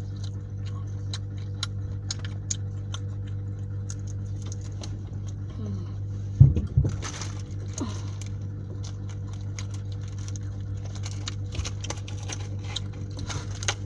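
A steady low hum with scattered small clicks and rattles, and one louder knock about six and a half seconds in.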